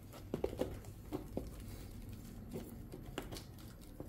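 Fingers pressing and working gritty bonsai soil mix into a small pot around a juniper's roots: faint scattered crunches and ticks of the grains shifting, a few louder ones in the first second and a half.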